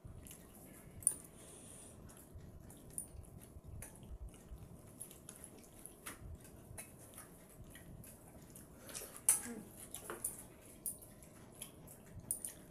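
Faint wet clicks and squelches of bare hands mixing and scooping pakhala, rice soaked in water, from steel bowls, with small scattered ticks of fingers against the metal; the sharpest clicks come about a second in and near nine seconds in.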